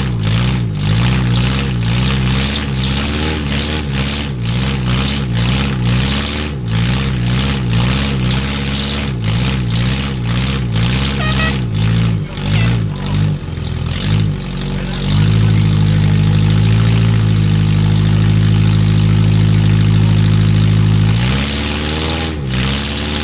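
Demolition derby vehicle engines revving hard, the pitch repeatedly rising and falling. About two-thirds of the way in one engine is held at steady high revs for several seconds, then drops back.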